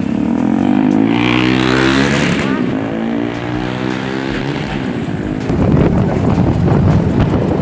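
A vehicle engine running, its pitch shifting slowly, for about five seconds; then, about five and a half seconds in, a louder rush of wind over the microphone of a moving vehicle.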